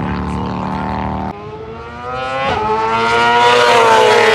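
Racing motorcycle engine held at steady revs, stopping abruptly a little over a second in. Then an engine note climbs in pitch and loudness as a motorcycle accelerates, peaking near the end.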